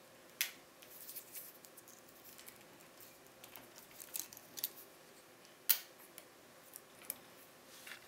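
Small metallic clicks and scrapes of a lock pick and tension wrench working in the keyway of a BKS PZ 88 pin-tumbler euro cylinder. The clicks come in scattered clusters, with one sharper click about two-thirds of the way through.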